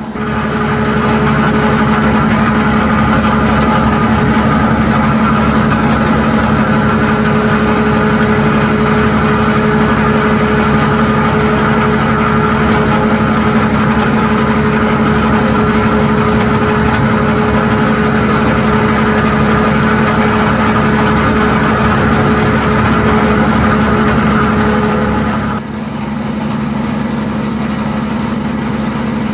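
Plastic crusher machine running steadily with a loud, even hum. About twenty-five seconds in it gets quieter and its higher tones stop while the low hum carries on.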